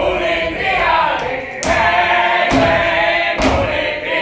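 A man singing loudly in a theatrical song with musical accompaniment. Sharp percussive hits land about once a second in the second half.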